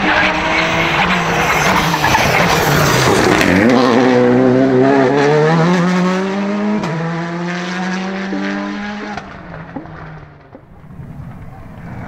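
Skoda Fabia R5 rally car's turbocharged four-cylinder engine at full throttle as the car passes close by. Its pitch drops sharply about three and a half seconds in, then climbs through a couple of upshifts, and the sound fades as the car pulls away near the end.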